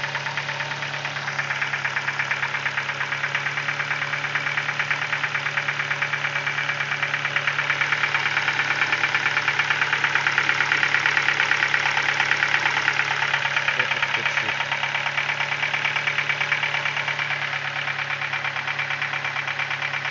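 Ford Focus 2 1.6 engine idling cold, with a rapid, even knock running through it. The knock's cause is not yet known; the owner is about to strip the engine to find it.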